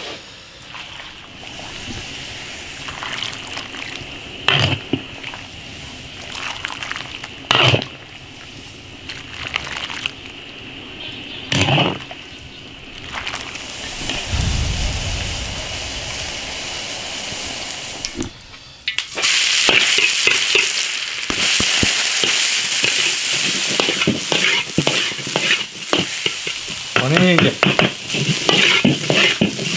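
A ladle clinks a few times against an iron wok as soup is scooped and poured. About two-thirds of the way in, a loud steady sizzle starts as chopped greens and chili fry in the hot iron wok, with the ladle scraping and stirring near the end.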